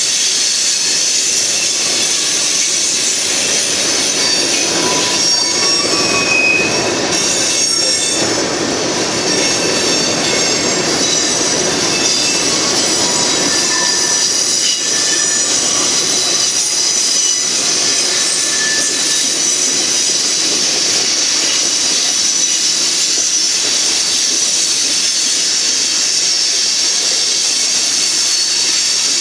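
Freight train cars (covered hoppers and boxcars) rolling past close by: a steady, loud rush of wheels on rail, with several high metallic squealing tones from the wheels that come and go.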